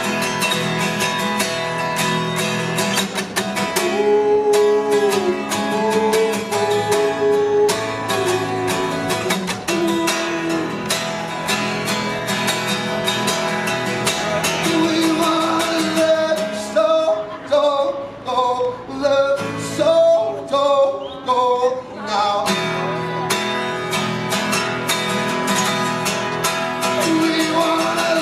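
Background music: a song with acoustic guitar and a singing voice over a steady beat.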